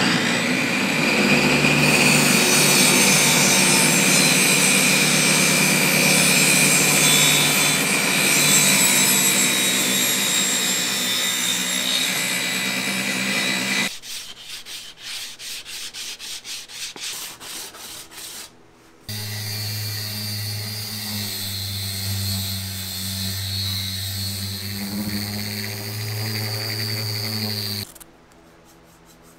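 A table saw runs and cuts a board for about fourteen seconds. This is followed by a few seconds of quick back-and-forth strokes, a block rubbed along a wooden edge. Then another power tool runs steadily with a low hum for about nine seconds and cuts off.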